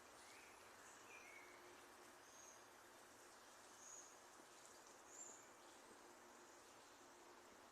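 Faint, scattered chirps from small birds: a few short, high notes spaced a second or so apart, over a steady background hiss.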